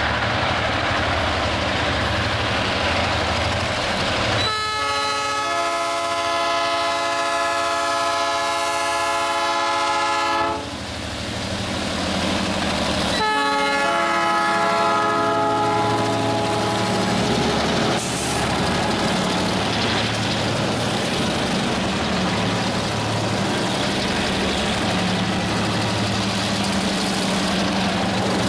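Diesel freight locomotives passing close by, their engines rumbling, with the air horn sounding a long multi-tone chord about four seconds in and a second, shorter blast about three seconds after it.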